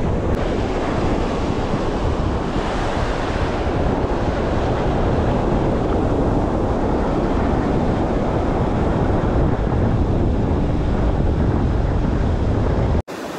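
Wind buffeting an action camera's microphone over surf breaking on a beach, a steady heavy rumble that cuts off suddenly near the end.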